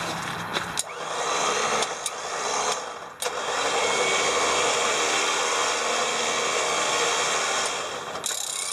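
Smittybilt electric winch starting and stopping in short bursts with sharp clicks from its solenoid. About three seconds in, the motor runs steadily for about five seconds, then cuts off suddenly near the end. The solenoid has been clicking and dropping out, a fault the owner puts down to a poor ground.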